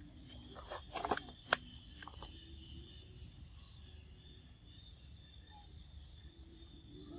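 Insects chirring steadily in the background, with a few sharp clicks and knocks about a second in.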